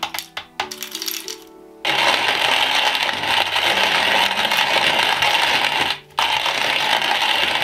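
Wooden box hand-cranked coffee mill: contents poured into its hopper rattle in, then the crank is turned and the burrs grind steadily, with a brief pause about six seconds in.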